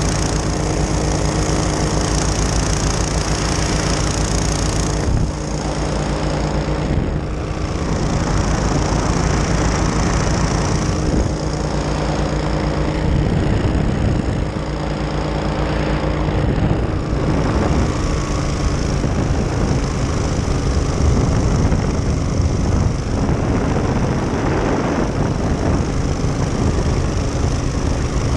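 Powered parachute's engine and pusher propeller running steadily in flight, its note shifting a few times, over a constant rush of air noise.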